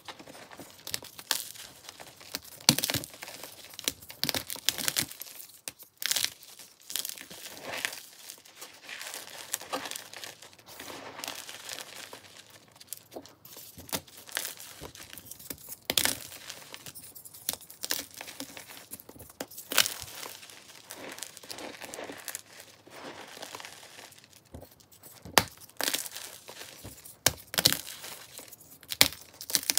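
Hands crushing and crumbling blue-dyed chalk blocks in a bed of chalk powder: dry, irregular crunching and crackling, with sharper snaps as pieces break apart, several of them near the end.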